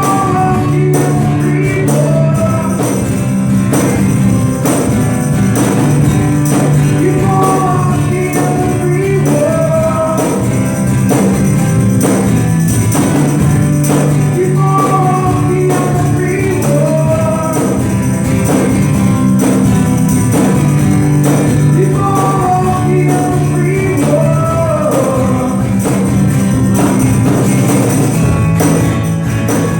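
A band playing music: a steady percussive beat over a bass line, with a melody phrase that comes round again every several seconds.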